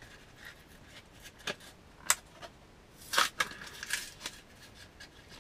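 Packaging being handled as a fishing jig is taken out of it: short rustles and several sharp clicks and crinkles, the loudest about two seconds and about three seconds in.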